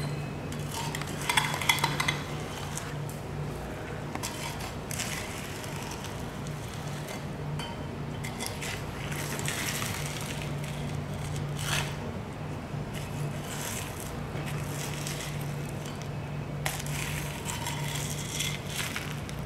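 Long knife drawn along a bluefin tuna's backbone and rib bones, with scattered metal clinks and clatter and a steady low hum behind; a louder cluster of clinks comes about a second and a half in.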